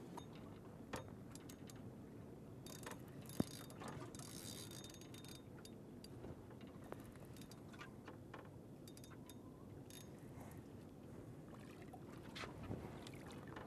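Faint clicks and rattles of a spinning reel being cranked and a fishing rod being handled, over a low steady background hiss, with a brief hiss about three to five seconds in.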